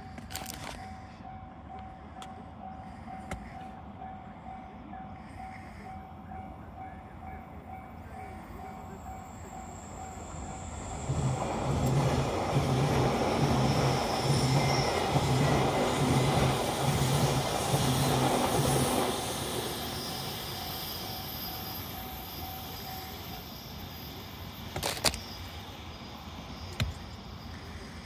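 A level-crossing warning bell rings a steady, evenly repeated ding while a JR Kyushu 813 series electric train passes. The train is loud for about eight seconds, with a regular beat of wheel clatter, then fades. The bell stops a few seconds after the train has gone, and a sharp knock comes near the end.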